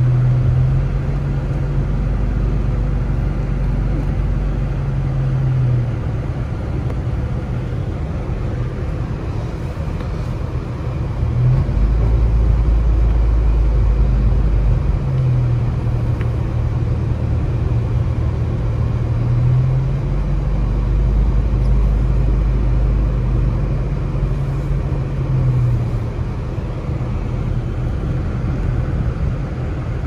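Car engine and road rumble heard from inside the cabin while driving, the engine's hum rising and falling in pitch several times as the speed changes, over a steady deep rumble from the road.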